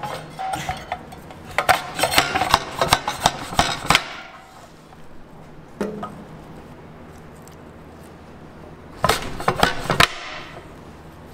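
Commercial tomato slicer clattering and clicking as whole tomatoes are pushed through its grid of blades, in two bursts of rapid sharp clicks several seconds apart, over a steady low hum.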